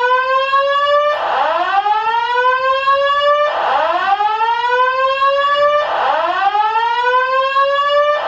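Building fire alarm sounding its loud whoop evacuation tone: a rising sweep that starts over about every two and a half seconds.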